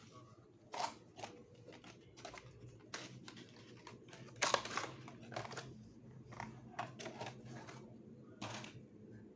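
Irregular clicks and rustles from a USB Ethernet adapter and its cable being handled and pulled out and pushed back into a computer's USB port, the loudest about halfway through, over a steady low hum.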